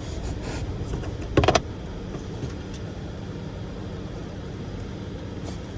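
A quick cluster of sharp plastic clicks about one and a half seconds in, from the Ford Edge's glove box push tabs being worked, with a few fainter ticks, over a steady low hum.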